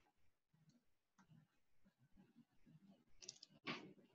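Near silence: faint room tone with a few soft clicks and a brief louder noise about three and a half seconds in.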